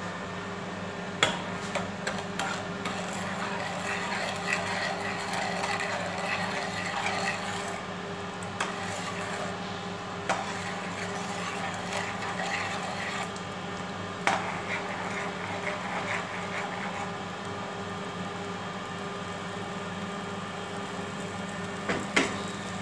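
A spoon stirring milk and sugar in a pan, scraping around the pan, with several sharp taps against the metal, over a steady low hum.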